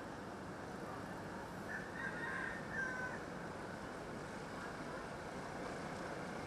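Steady outdoor background rumble and hiss, with one short, high animal call of about a second, starting about two seconds in.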